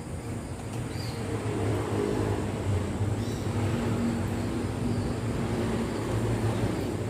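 A motor's steady low drone with a pitched hum, getting louder about a second and a half in and then holding.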